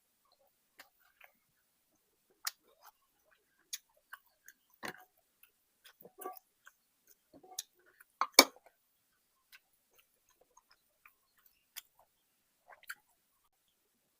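Close-up mouth sounds of a person eating rice and curry: scattered short wet clicks and smacks of chewing, with the loudest smack about eight seconds in.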